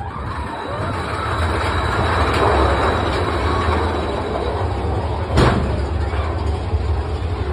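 Mine-train roller coaster cars running along the track through a rock tunnel, a steady rumbling that grows over the first two seconds, with one sharp clack about five seconds in.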